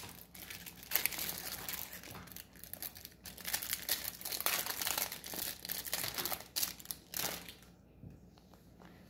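Thin clear plastic wrapper on a set of Pokémon trading cards crinkling as it is handled and pulled open. The crackling dies down about a second and a half before the end.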